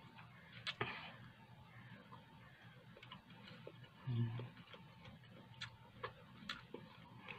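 A person chewing food with the mouth closed: soft, irregularly spaced mouth clicks and smacks, with a short hummed "mm" about four seconds in.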